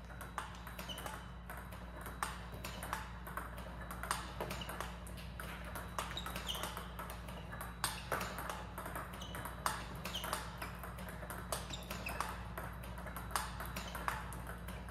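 Table tennis rally against a ball-feeding robot: celluloid-type plastic balls clicking sharply off the table and paddle, about two clicks a second, over a steady low hum.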